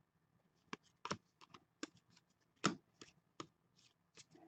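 Trading cards being handled and flipped through in a stack, with faint scattered clicks and flicks of card stock, about ten in all, the loudest about two and a half seconds in.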